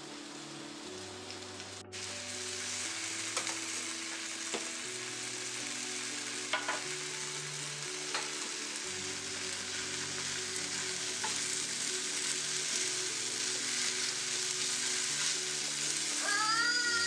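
Spaghetti and chopped vegetables sizzling as they fry in a hot pan, a steady sizzle that starts about two seconds in, with a few light clicks. Soft background music plays underneath.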